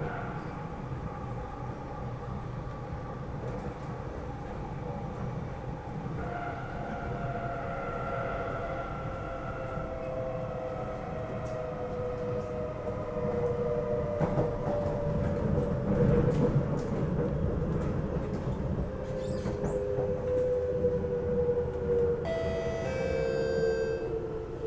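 Interior of an SMRT C751B metro train in motion: a steady rumble of wheels on rail, with the traction motors' whine falling slowly in pitch as the train slows.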